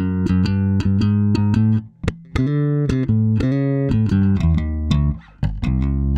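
Electric jazz bass (an FGN Neo Classic Jazz Bass on its stock pickups) playing a riff of quick plucked notes, with two brief breaks in the line.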